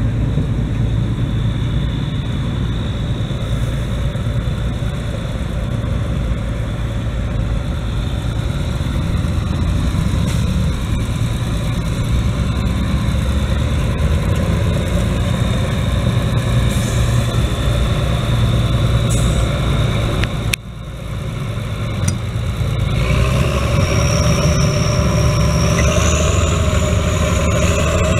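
Schlüter Profi Trac 3500 TVL's turbocharged, intercooled MAN diesel running under load while the tractor pulls a disc harrow. The sound breaks off sharply about two-thirds of the way through, then resumes, and near the end the engine note rises with a high whistle climbing above it.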